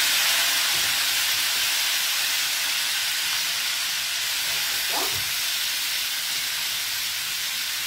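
Freshly drained mezze maniche pasta sizzling in hot rendered guanciale fat in an aluminium frying pan: a loud, steady hiss from the water on the pasta hitting the fat, easing slowly.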